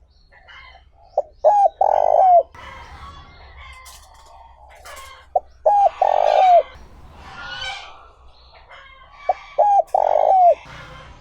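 Spotted dove cooing: three phrases about four seconds apart, each a couple of short coos followed by a longer coo that falls at the end. Fainter chirping from other small birds runs underneath.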